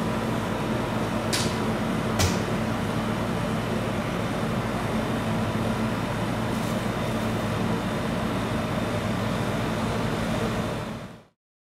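Steady machine hum over background noise, with two sharp clicks in the first few seconds, fading out near the end.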